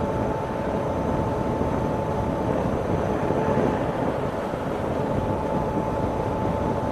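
Steady, even background noise with a faint constant tone running through it.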